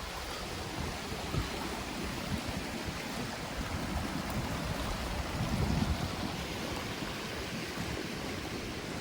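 Stream water rushing steadily, with wind gusting on the microphone.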